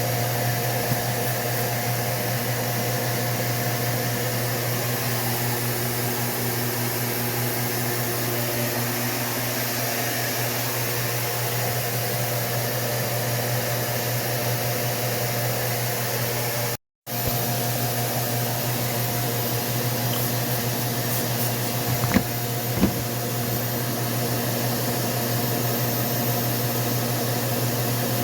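A steady mechanical hum with a whooshing hiss. It breaks off for a moment about two-thirds of the way through, and two short clicks come a few seconds later.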